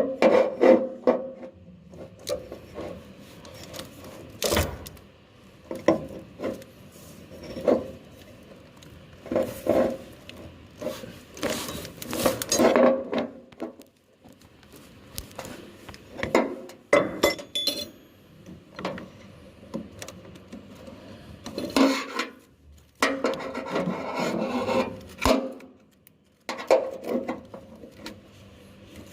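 Hand work with wire: repeated scraping and rubbing strokes that come in irregular bouts a second or two long, separated by short pauses.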